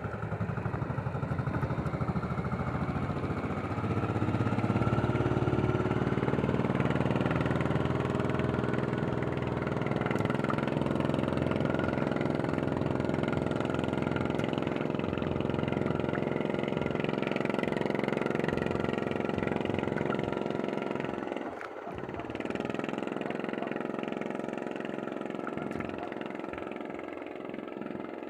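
A small engine running steadily, speeding up a few seconds in and then holding its speed. About 21 seconds in it briefly drops off, then picks up again and runs on a little quieter.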